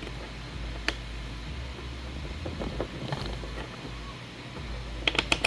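3D-printed plastic hinge parts and pegs being handled and fitted: a single sharp click about a second in, light rubbing and clatter, then a quick run of sharp plastic clicks near the end.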